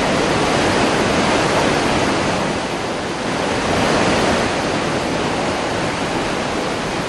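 Water rushing steadily through the open crest gates of the Krishnaraja Sagar (KRS) dam: surplus water is being spilled from the nearly full reservoir as a continuous churning flow of white water.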